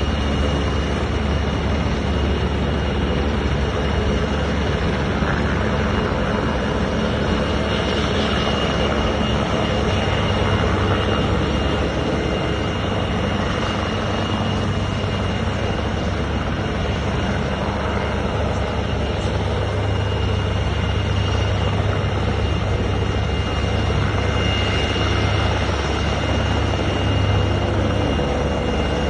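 Rescue helicopter running steadily as it hovers low and descends toward the shore, its rotor noise heavy and unbroken, with a thin steady high whine above it.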